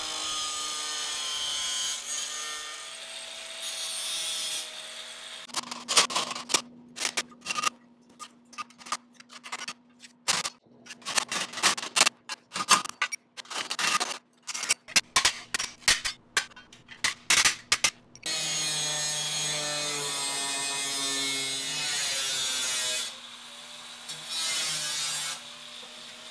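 An angle grinder cuts 16-gauge sheet steel, a steady grinding with a whine in it for about five seconds. Then comes a long run of sharp hammer blows on the steel sheet, a few a second, as the brace is hammer-formed. A power tool runs steadily again for several seconds near the end.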